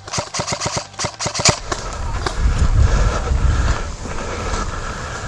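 Airsoft gun firing a rapid string of shots for about a second and a half, followed by a low rumble.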